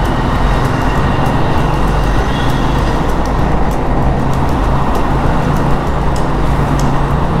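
Traffic noise echoing inside a long road tunnel, heard from a motorcycle riding through it: a loud, steady roar of engines and tyres with a low engine hum beneath. The tunnel's echo makes the passing traffic sound faster and more frightening than it is.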